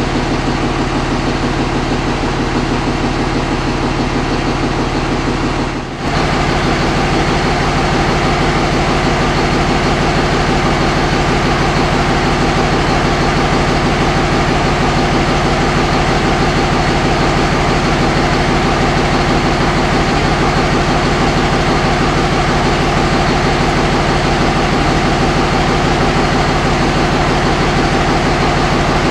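2005 Dodge Ram's 5.9 Cummins inline-six turbo diesel idling steadily. About six seconds in the sound briefly drops, then carries on with a slightly different tone.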